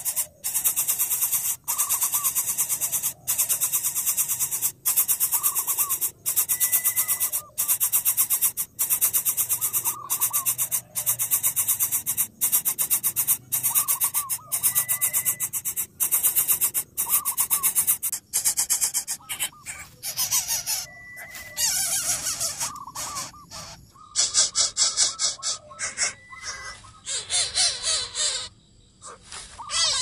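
Greater coucal nestling begging: harsh, rapid rasping calls in runs of about a second and a half with short breaks between, turning more broken and uneven in the last third.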